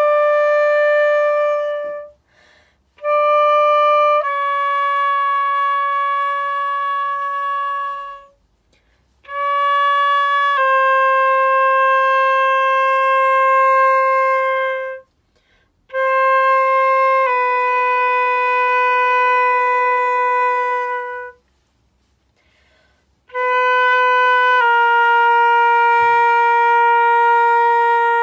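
Flute playing long tones: each breath holds a note, steps down slightly to a second note held for several seconds, and stops for a breath, with each phrase pitched a little lower than the last. The tone is steady and even, the long-tone exercise for building flute sound and breath control.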